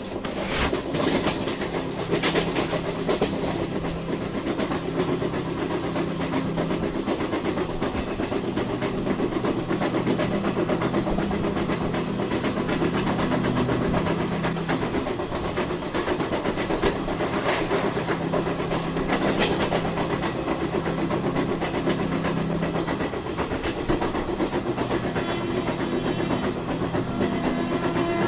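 Train running along the track: a steady rumble with rapid rattling of the wheels and carriages.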